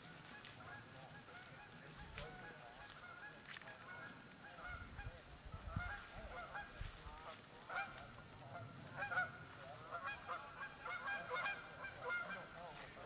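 A pack of 15-inch male beagles baying on a rabbit's scent: many short, overlapping bawls and yelps that grow busier about five seconds in.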